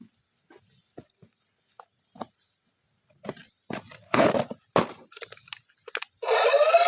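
Small clicks, taps and rustles of toys and packaging being handled, with two louder rustling bursts past the middle. Near the end a loud, wavering pitched sound starts.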